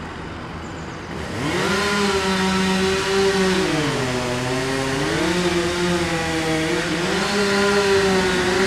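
A chainsaw revs up about a second in and runs at high speed. Its pitch sags for about a second around the middle, then climbs back.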